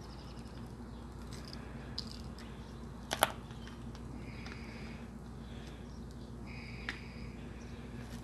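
Wood fire crackling under a hanging cast iron pot, with one sharp pop about three seconds in and a smaller one near seven seconds, over a steady low hum. Short high chirps, like birds, sound in the background.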